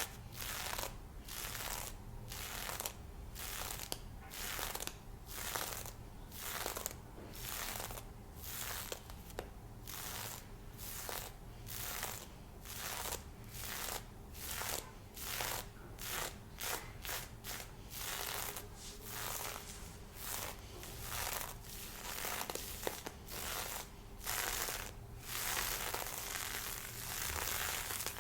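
Lace fishnet stockings being scratched and rubbed up close, a steady run of quick scratchy strokes at roughly two a second.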